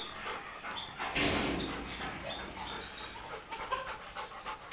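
A dog panting and moving about in a concrete kennel, with a louder rustling noise about a second in, while birds call with short, high chirps in the background.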